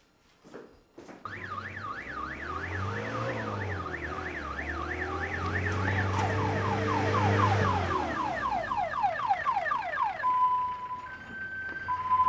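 Police van siren in a fast up-and-down yelp, joined about halfway by a second pattern of quick rising sweeps, then switching to a steady two-tone hi-lo about ten seconds in. A vehicle engine runs low beneath the siren for most of it.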